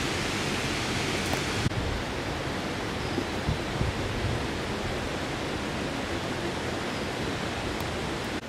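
Steady rushing of river water, a bright hiss for about the first second and a half, then a duller, even rush.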